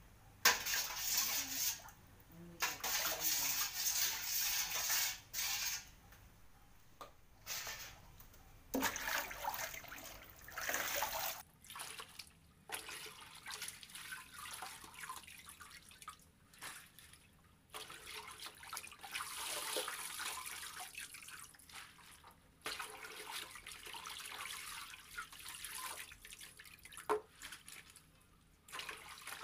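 Water sloshing, splashing and dripping in basins as wet potato slices are stirred and scooped out of soaking water with a plastic strainer basket. It comes in stop-start bursts, heaviest in the first few seconds, then lighter splashes and drips.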